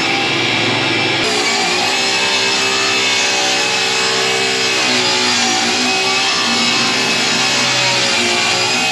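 Background rock music with guitar, playing steadily over the scene.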